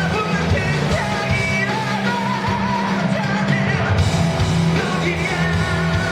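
Rock band playing live with a singer, loud and continuous, with a steady bass line under sung melody.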